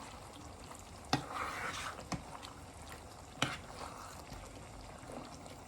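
Three sharp clinks of a utensil against the pot, spaced about a second apart, with soft wet stirring of the gizzard stew after the first.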